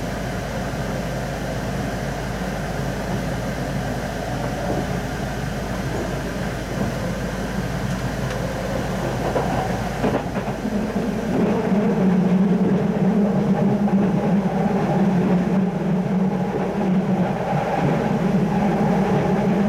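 Keihan Railway train running at speed, heard from inside the carriage: steady wheel-and-track rumble. About halfway through it gets louder and a steady low hum comes in.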